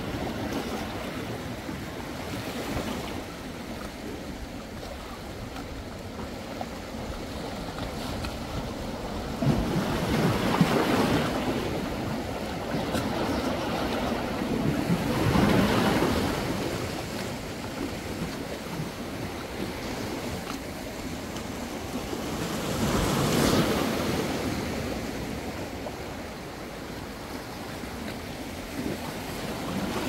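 Sea waves washing onto the shore in a steady noisy wash, with three bigger surges as larger waves break.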